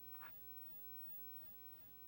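Near silence of room tone, with one brief faint click about a quarter second in, a button pressed on a TV remote control.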